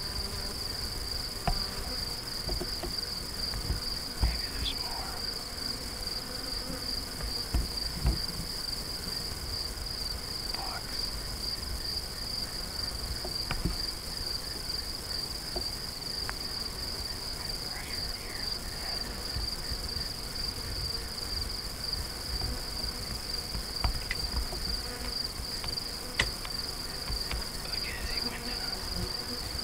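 A steady, high-pitched chorus of insects trilling without a break, over a low rumble, with a few brief knocks and clicks scattered through.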